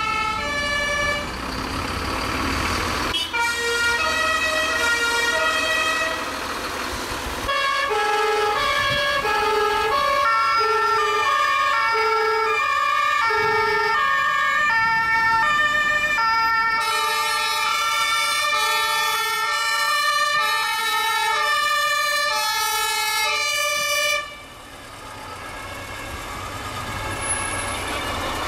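German two-tone fire-engine sirens (Martinshorn) from fire engines driving past, several sounding at once and out of step, each alternating between a low and a high note in a cycle of about 1.3 seconds. The sirens stop abruptly about three-quarters of the way through, leaving the engines' low rumble.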